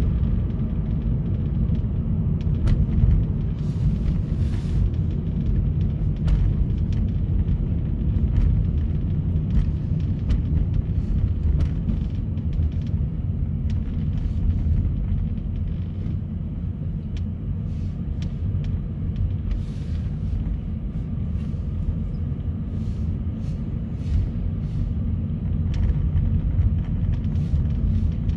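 Steady low rumble of a car being driven, engine and tyre noise carried through the vehicle.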